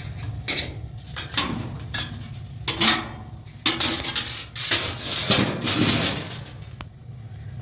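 Irregular metallic clinks and rattles of hand tools and sheet-metal parts being handled while a washing machine is taken apart, with a denser run of clatter about five to six seconds in.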